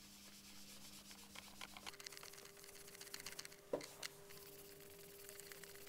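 Faint rubbing of abrasive plastic-polishing paste by hand over the scratched plastic screen window of an Amstrad NC100, to take out light scratches. A single sharp tap comes about two-thirds of the way in, over a faint steady hum.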